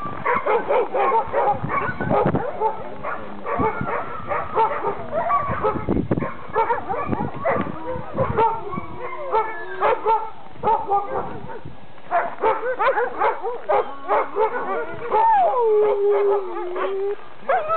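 A yard full of chained sled dogs barking and yipping all at once in a dense chorus of overlapping calls, the racket of dogs worked up and waiting to run. A few seconds before the end, one dog's long howl drops in pitch and is held.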